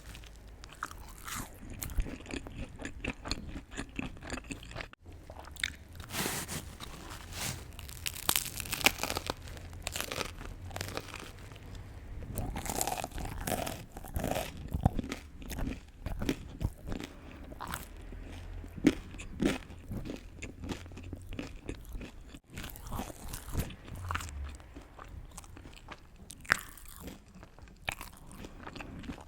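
Close-miked eating for ASMR: crunchy bites and chewing, a dense run of crisp crackles with a few louder bites.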